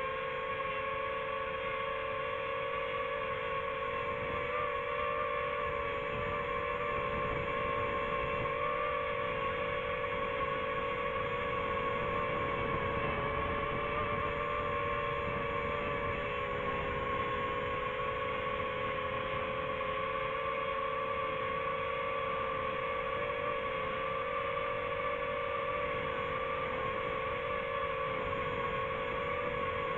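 Quadcopter camera drone's propellers humming steadily as it hovers, a droning hum whose pitch wavers slightly.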